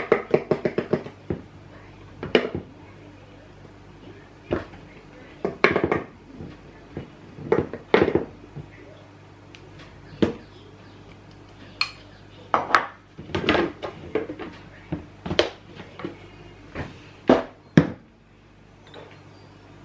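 Kitchen bowls and utensils clinking and clattering while muffin batter is mixed: a quick run of clinks at the start, then separate knocks and clatters every second or two.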